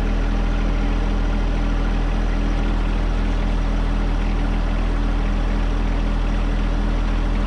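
Compact utility tractor's engine idling steadily, heard close up as a low, even drone.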